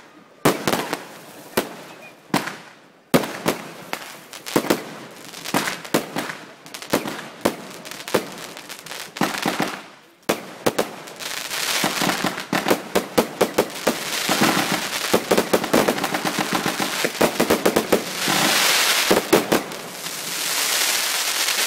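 Aerial fireworks bursting: separate sharp bangs at first, then from about halfway a dense run of pops and crackling, loudest near the end.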